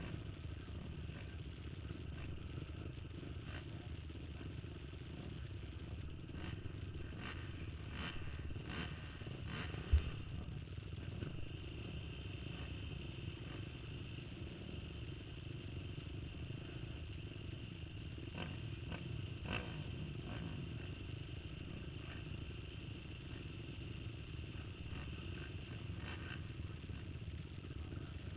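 Faint, steady rumble of racing ATV engines on a motocross track, with scattered clicks and one sharp thump about ten seconds in.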